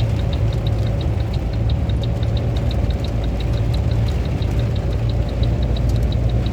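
Vehicle engine running steadily, with a fast, regular high-pitched ticking of about five or six ticks a second over its low hum.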